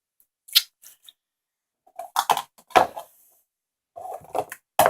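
Handling noise: a few short, separate clicks and knocks, the loudest near the end.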